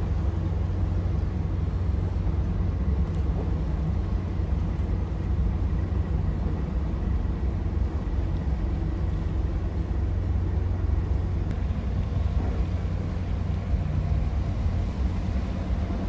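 Car ferry's engines running with a steady low rumble as it manoeuvres in to berth.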